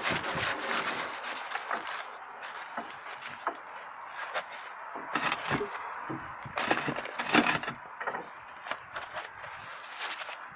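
Roofing underfelt crinkling and rustling as a roll of it is unrolled and pulled by hand, in irregular crackles with louder bursts of handling about five to seven and a half seconds in.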